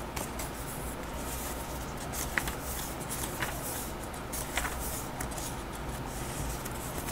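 Pages of a small paper booklet being turned by hand: soft paper rustling, with a few short flicks in the middle.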